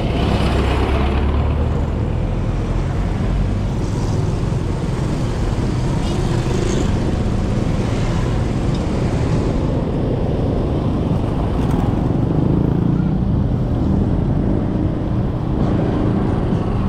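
Steady running of a vehicle on a city ride: engine and road noise with surrounding traffic.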